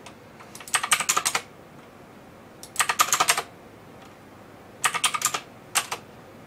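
Computer keyboard typing in short bursts of quick keystrokes: three bursts of about half a second each, roughly two seconds apart, and a brief fourth one near the end.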